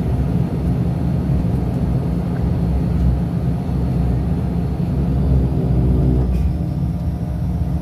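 Turboprop engine and propeller running at a steady low drone, heard from inside the cabin beside the propeller, as the aircraft rolls along the runway before takeoff.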